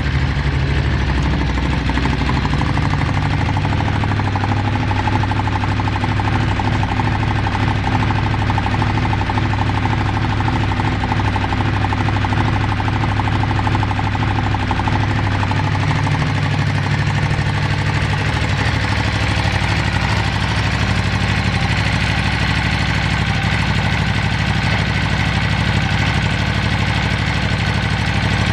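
Ducati Monster 821's 821 cc L-twin engine idling steadily, with a pulsing beat. The idle is stable with no abnormal noises, as the seller states.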